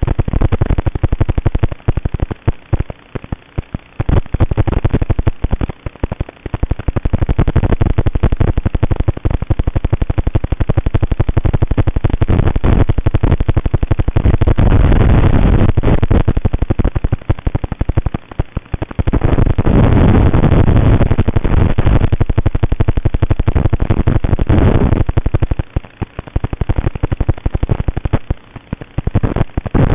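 The brushless motors of a TBS Vendetta racing quadcopter, buzzing with a rough crackle that rises and falls with the throttle. There are a few short lulls where the motors ease off, around a quarter, two-thirds and near the end.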